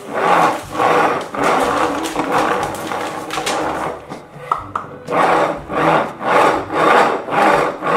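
Plastic toy ATV pushed back and forth across a tabletop, its wheels rolling and rubbing in an even rhythm of about two strokes a second.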